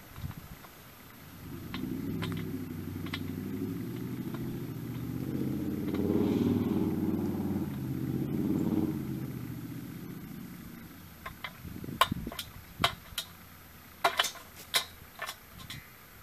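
A motor vehicle drives past, its engine hum swelling and then fading away over about ten seconds. After that comes a run of sharp taps and clicks: a crow's beak pecking food out of a metal bowl.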